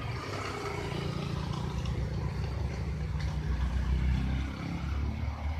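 Road traffic: a motorcycle's engine running as it passes close by and pulls away round the hairpin, with a loaded lorry's engine further off.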